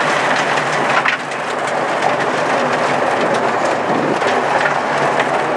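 Audi 80 quattro rally car at speed on a gravel stage, heard inside the cabin: loose gravel drumming and crunching against the underbody and wheel arches over the engine running hard.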